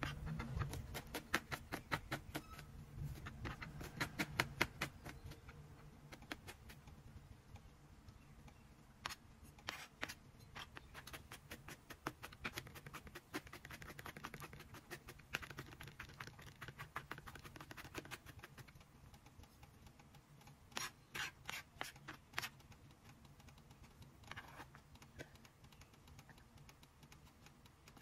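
Chef's knife chopping garlic on a plastic cutting board, the blade tapping the board in quick rhythmic runs. A fast run of chops in the first few seconds, then shorter runs with pauses between.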